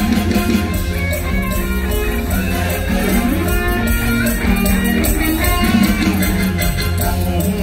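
Live Isan mor lam band music over a loud stage PA, with a steady beat and a heavy bass line.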